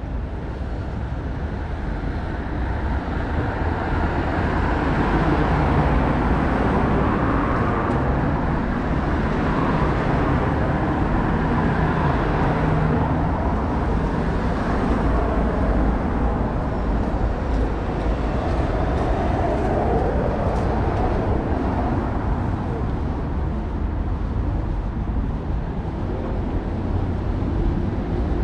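Busy city street ambience: steady traffic noise from passing vehicles, growing louder over the first few seconds, then holding.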